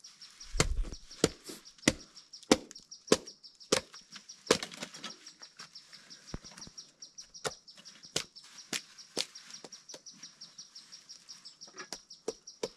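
A large knife blade chopping and splitting kindling from a wooden log: sharp woody chops about every half-second at first, then lighter, quicker cuts. A faint high, fast-pulsing chirr runs underneath.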